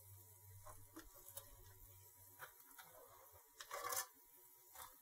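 Faint, scattered taps and light scrapes of kitchen tongs turning crisp chicken wings in an air fryer basket, with one slightly louder scrape a little before four seconds in.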